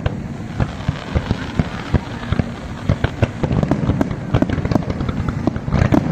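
Fireworks display: a rapid, irregular run of bangs and crackling pops, several a second, over steady background noise, with a louder cluster of bangs near the end.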